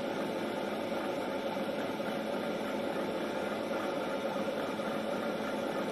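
Recorded diesel railcar engine sound idling steadily from a KATO Sound Box model-railway sound unit, heard through its small speaker as an even hum with a light hiss.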